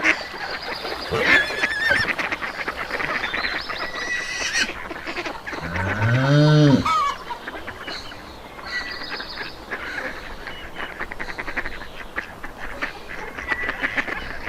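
Farmyard poultry calling over one another in a dense, chattering flock, with one louder, lower drawn-out call about six seconds in.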